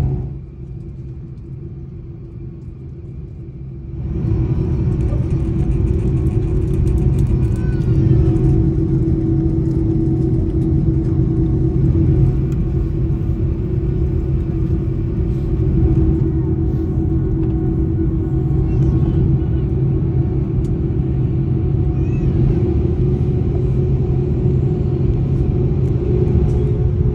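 Airliner's jet engines heard from inside the cabin, a loud, steady rumble with a low hum. The sound steps up sharply about four seconds in and then holds.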